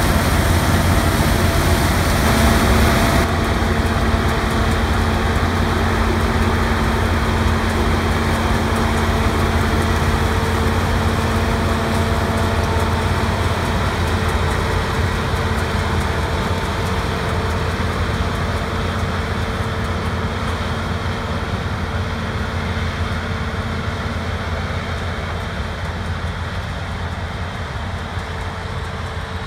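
Heavy farm harvest machinery running steadily: a dense engine-and-machine drone with a deep rumble and a few steady hum tones. The high hiss drops away about three seconds in, and the whole sound slowly fades.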